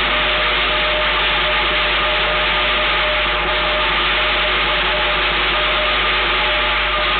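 Steady loud hiss with a low hum underneath and a few faint steady tones; no separate drum or cymbal strikes stand out.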